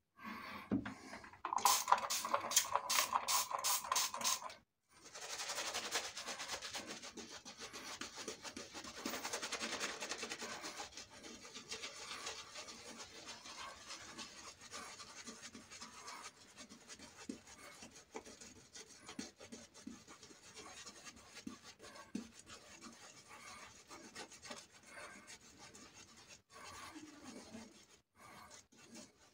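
Silvertip badger shaving brush rubbing lather over a stubbly face. It starts with a couple of seconds of quick strokes, about three a second, then goes on as softer continuous rubbing that grows quieter.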